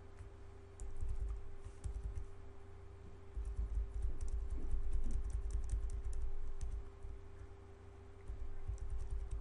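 Light, irregular clicking from a computer mouse and keyboard, over an intermittent low rumble and a faint steady hum.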